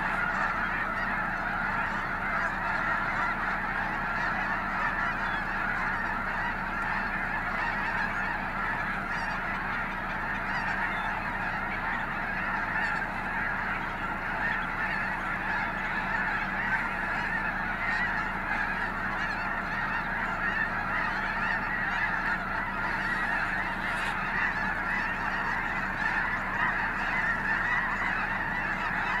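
A huge flock of snow geese honking all at once: a dense, steady chorus of overlapping calls with no single bird standing out.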